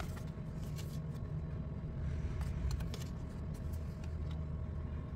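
Faint steady low rumble with a few light clicks scattered through it.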